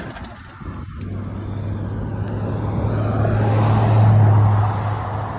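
A motor vehicle driving past: a steady low engine hum and road noise swell to their loudest about four seconds in, then fade.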